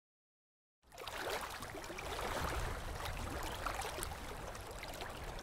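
Riverside ambience: water lapping and trickling at the shore over a low rumble, cutting in suddenly about a second in after dead silence.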